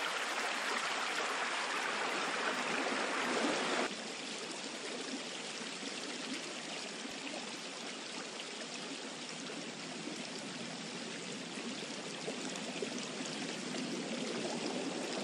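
Synthetic running-water sound from an online sound generator: a steady pouring, stream-like rush. It drops abruptly to a lower, duller rush about four seconds in, then swells slightly near the end.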